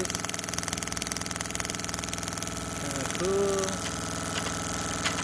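HEI ignition test rig running steadily, its distributor driven at speed, with a fast, even crackle of high-voltage sparks jumping at the spark plug tips. A short vocal sound comes about three seconds in.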